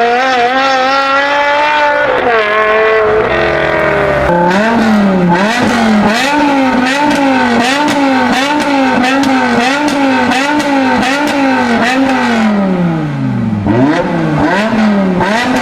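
BMW M5 E60's naturally aspirated 5.0-litre V10 being revved. A held high rev drops away after about two seconds. Then comes a long run of quick throttle blips, the pitch rising and falling about once every three-quarters of a second, with a slower fall in revs near the end.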